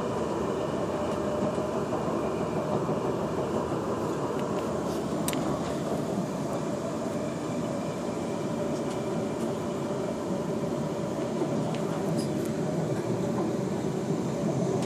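Passenger train running at speed, heard from inside the carriage: a steady rumble of wheels and running gear, with a few faint clicks.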